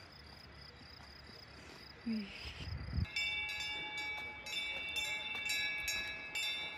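Cowbells on grazing cattle ringing and clanking, several overlapping bell tones struck again and again, starting about three seconds in. Before that, only a faint steady high tone over quiet outdoor background.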